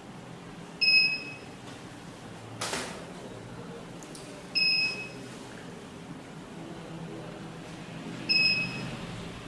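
Active 207 burglar alarm keypad beeping as soft-touch keys are pressed to enter the zone 2 password: three short, high beeps roughly three and a half seconds apart. A brief rustle comes between the first and second beep.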